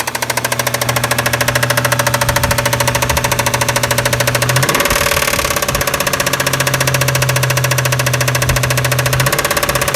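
1996 Toyota Tacoma's 3.4-litre 5VZ-FE V6 running steadily with a loud, rapid, even tapping. The owner takes it for possible rod knock, though compression is good and new plugs, wires, coil packs and injectors have not cured it, and he suspects the valves next.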